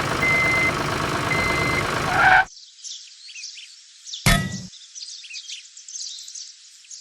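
Loud machine engine noise with a repeating beep, about one a second like a reversing alarm, that cuts off abruptly about two and a half seconds in. Thin bird chirping follows, with one short thump partway through.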